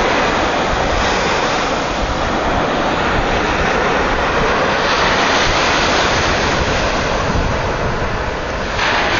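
Steady rushing noise of sea wind buffeting the microphone, mixed with surf.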